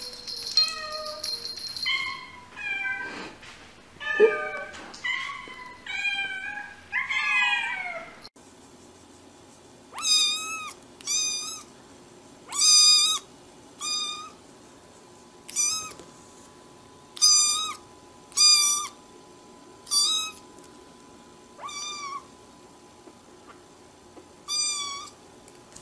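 Cats meowing in short calls that bend in pitch, some overlapping and some rising. After a break, a kitten mews about ten times in high-pitched calls, each about a second and a half apart.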